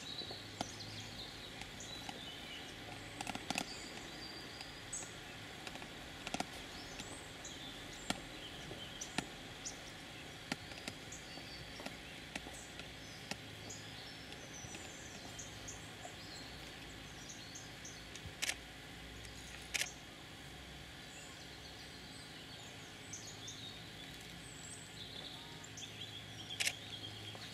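Quiet outdoor ambience: a steady low hush with small birds chirping now and then, and a few sharp clicks, two of them louder about two-thirds of the way through.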